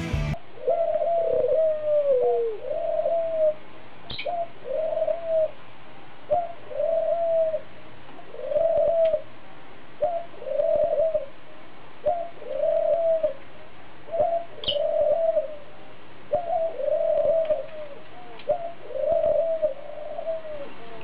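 A pigeon cooing over and over, about one coo a second, each coo rising and then falling in pitch.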